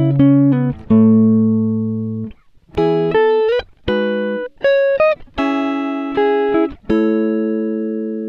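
Background music: a slow melody of single plucked notes, each ringing and fading away, with a short pause about two and a half seconds in.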